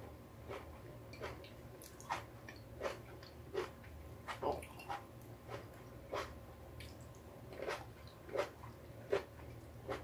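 A person chewing and biting cherry tomatoes close to the microphone: short, sharp mouth clicks come every second or so, with a steady low hum underneath.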